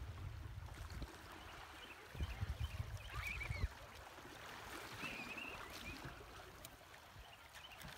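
Wind gusting on the microphone, low rumbles for about the first second and again from about two seconds in until a little past three and a half, over a steady hiss, with a few faint high calls in the distance.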